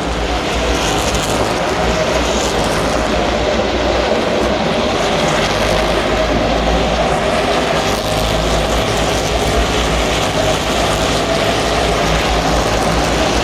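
A field of NASCAR Cup stock cars' V8 engines running together on track, a continuous loud, steady drone with a slowly wavering engine note.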